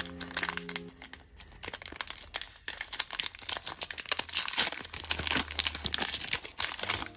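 Foil wrapper of a Pokémon Shining Fates booster pack being torn open by hand, crinkling with a dense run of crackles and rips.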